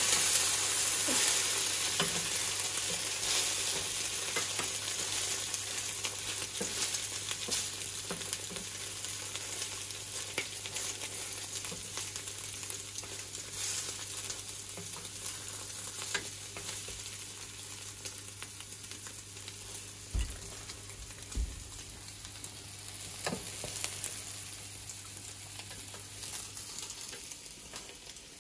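A noodle omelette of instant noodles and egg sizzling in oil in a stainless steel frying pan, with a wooden spatula scraping and tapping the pan now and then. The sizzle is loudest at the start and eases off; two low thumps come about two-thirds of the way through.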